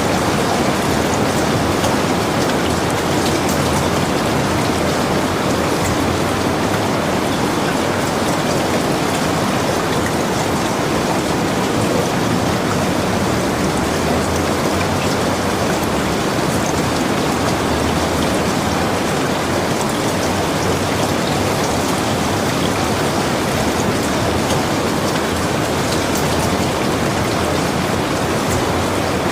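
Steady rain falling: a dense, even patter of drops that stays constant throughout.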